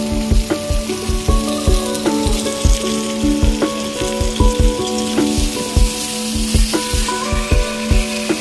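Background music with a steady beat, over the even sizzle of cubed vegetables frying in oil in a karahi.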